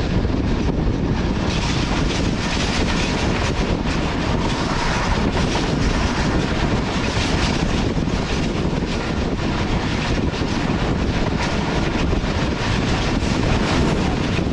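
Passenger train running at speed, heard from on board: a steady rumble of wheels on the rails with rushing air.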